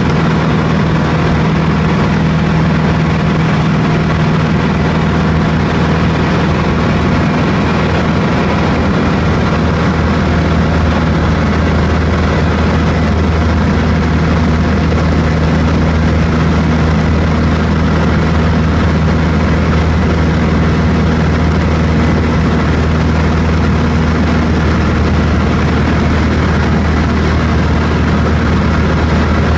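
Light high-wing propeller aircraft in level flight, heard from inside the cabin: the engine and propeller make a loud, steady drone at an unchanging pitch.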